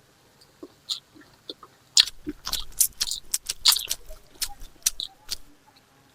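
Close-miked eating: a person chewing and biting food with wet smacks and crunchy clicks, a few at first, then a quick dense run from about two seconds in to about five.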